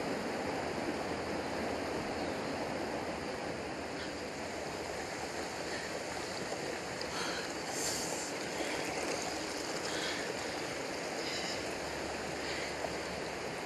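Mountain stream rushing and splashing over rocks, a steady rush of water.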